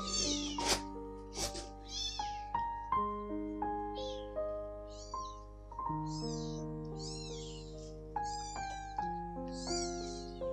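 A three-week-old kitten mewing repeatedly in short, high-pitched cries, about one every half to three-quarters of a second, over background music.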